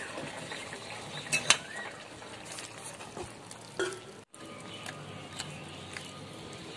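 Metal kadai and the metal spoon in it knocking together as the pan is lifted off the stove and tipped to pour out the curry: a few sharp clinks, the loudest about a second and a half in and again just before four seconds.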